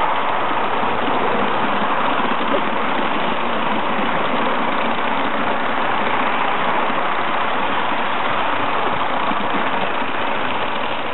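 Bassett-Lowke O gauge model locomotive running along the track: a steady hiss with no clear beat.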